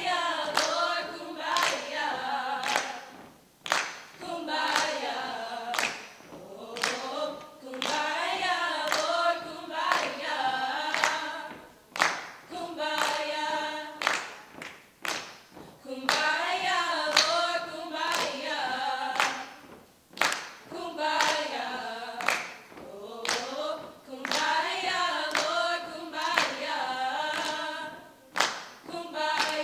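A small choir singing a cappella in phrases of a few seconds, with handclaps keeping a steady beat.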